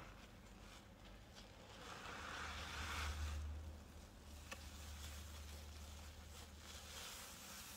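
Soapy, paste-soaked sponges squeezed in rinse water: soft squishing that swells about two to three seconds in, with a few faint wet clicks and a low rumble underneath for several seconds.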